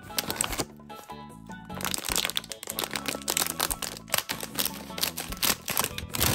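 Crinkling of a clear plastic bag of sugar-coated gummy cubes being handled, with fingernail clicks, over steady background music. The crackling thickens and grows louder about two seconds in.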